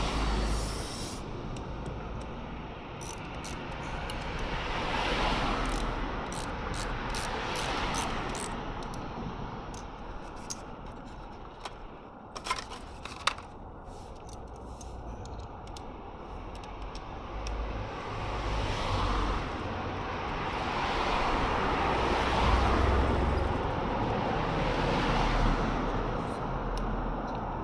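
Kawasaki ZRX1200R inline-four engine running, its sound swelling and easing off several times, with scattered sharp clicks: the clicking the owner hears coming from the alternator.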